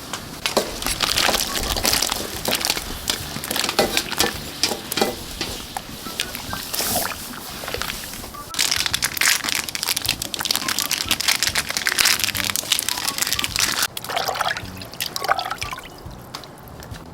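Liquid pouring and sloshing in two long stretches, with many small clicks and splashes, easing off near the end.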